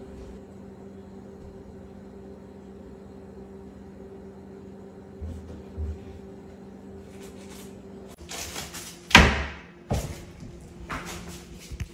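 Wooden kitchen cabinet door banging shut as a cat gets down from the counter: a few knocks, then one loud bang about nine seconds in and two lighter knocks after it, over a steady low hum.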